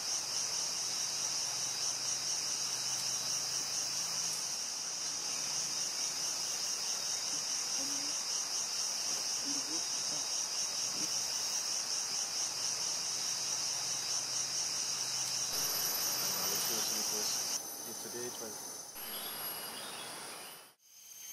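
A rainforest insect chorus: a steady, high-pitched drone with a fast, even pulse. It cuts off suddenly near the end, leaving a thinner, higher buzz.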